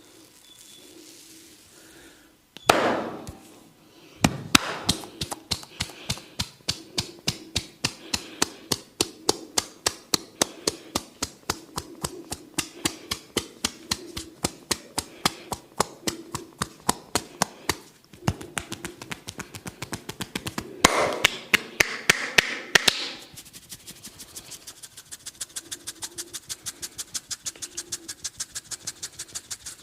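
Percussive hand massage: the barber's hands tap and slap rhythmically on the client's head and shoulders, about four to five strokes a second. Near the end it turns to a lighter, quicker run of taps. There are louder, rougher stretches a few seconds in and about two-thirds of the way through.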